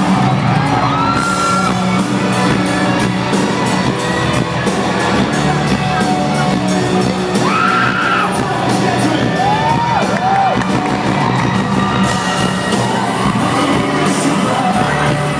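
A live band playing amplified pop-rock music with a singer, in a large hall, with the crowd whooping and yelling over it.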